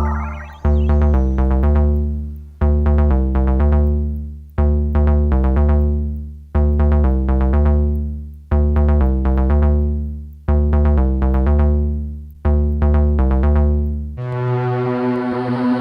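Synthesizer music: a keyboard phrase with a heavy bass note starts again about every two seconds and fades away before the next. Near the end it gives way to a held, droning chord.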